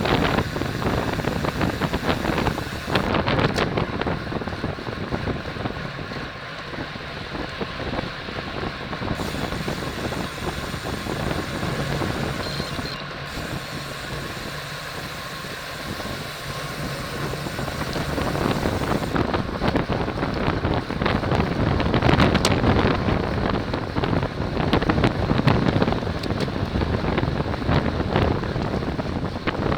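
Wind rushing and buffeting over a racing cyclist's camera microphone at race speed, mixed with tyre and road noise, growing louder about two-thirds of the way through.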